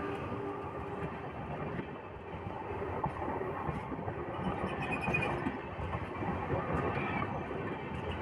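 Train coaches rolling past on the rail right beside the microphone: steady rumble and rattle of wheels and bogies on the track, with a brief high squeal about five seconds in.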